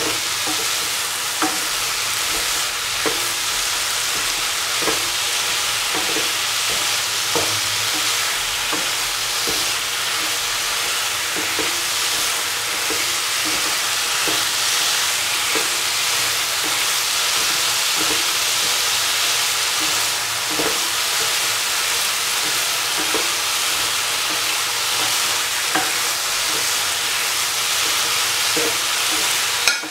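Chicken pieces with onion, tomato and spices sizzling in oil in a pan, while a cooking spoon stirs them, knocking and scraping against the pan every second or two.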